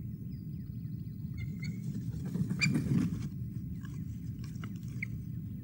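An osprey landing on its stick nest: a burst of wing flapping and crackling of sticks about two and a half seconds in, then scattered flaps and scrapes as it settles. A few short high chirps come near the start and near the end, over a steady low rumble on the microphone.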